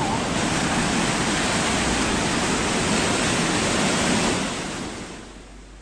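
Fast-flowing floodwater rushing steadily, fading out over the last second or so.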